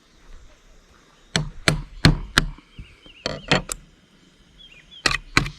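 Manual can opener cranking into a can: a run of sharp metallic clicks in short bursts of three or four, with pauses between.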